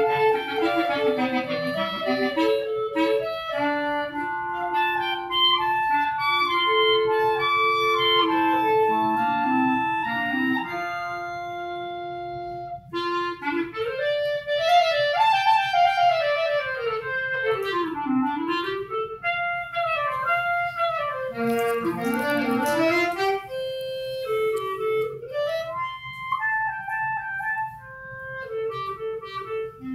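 Clarinet trio playing: three clarinets sounding together, with held and moving notes for the first dozen seconds, then quick rising and falling runs from about thirteen seconds in.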